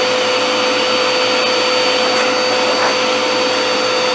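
Small handheld vacuum cleaner running steadily, a constant whine over a rushing hiss.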